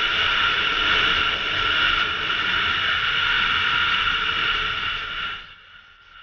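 Single-cylinder two-stroke motorcycle engine running at a steady speed under way, mixed with wind rush on the helmet camera; it fades out about five and a half seconds in.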